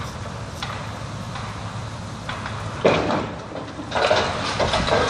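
Wrecking ball slamming into a brick-and-steel building wall: a sudden loud crash about three seconds in, then a second stretch of crashing and clattering debris about a second later, over a steady low rumble.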